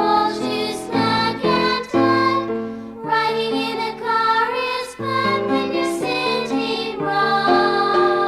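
A children's song: a bright melodic tune in a run of short, separate notes.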